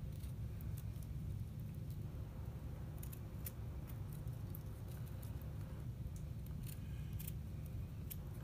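Hand-carving knife cutting into a small piece of wood: scattered faint clicks and snicks at irregular moments as the blade slices out small chips, over a steady low hum.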